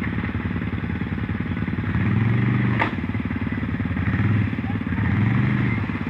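Quad bike (ATV) engines running in the water, the throttle opened up twice so the engine note swells and falls back, with one sharp click just under three seconds in.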